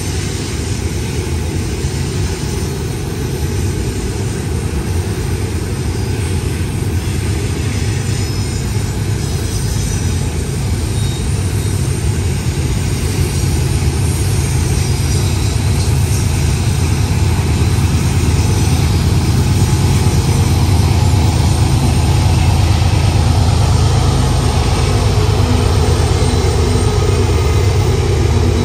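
Diesel freight train locomotives running with a steady low rumble that grows slowly louder.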